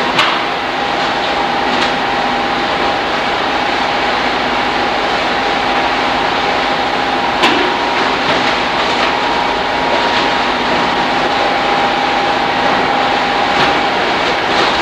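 Fishing trawler's processing-deck machinery running: a steady loud mechanical noise with a held hum, broken by a few sharp metallic knocks, the clearest about halfway through.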